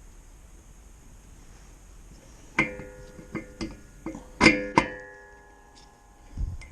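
Metal parts of the mini bike's front axle assembly clinking together: several sharp strikes a couple of seconds in, the loudest two about half a second apart, each leaving a ringing metallic tone that fades over about a second. A dull thump follows near the end.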